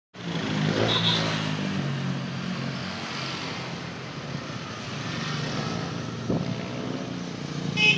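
Small motorcycle engines running as motorcycles and a motorcycle tricycle pass on the street, a steady low engine hum. A short, sharp high sound comes just before the end.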